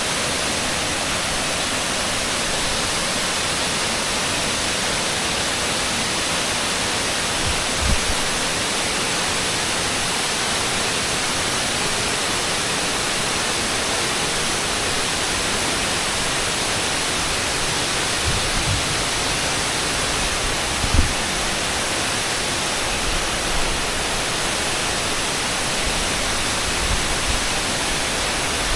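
Waterfall: water pouring down a cliff in many streams, a steady, even rush. A few soft low thumps break through, the clearest about 21 seconds in.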